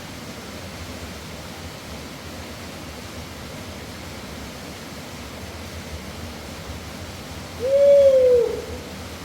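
Steady rushing of a mountain river. Near the end comes one loud, drawn-out call that rises and then falls in pitch.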